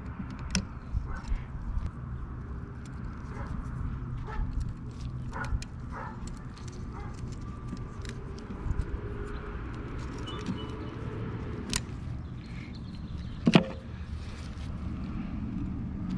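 Scattered small metallic clicks and taps from needle-nose pliers working the brush springs on a trolling motor's brush end cap, with one sharper snap about 13 seconds in, over a steady low background rumble.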